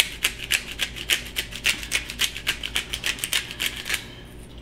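Hand-held black pepper grinder being twisted over sliced tomatoes. It gives a quick, even run of dry clicking rasps, about five a second, which stops about four seconds in.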